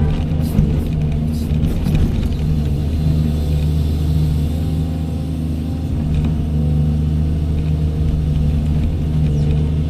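Diesel engine of a Doosan 210W wheeled excavator running steadily with a deep hum while it works, with a few knocks and rattles in the first couple of seconds.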